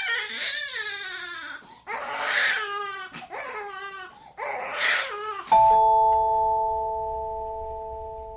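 A baby crying in three wailing cries, each sliding up and down in pitch. About five and a half seconds in, a doorbell chime rings in quick succession, its notes held and slowly fading.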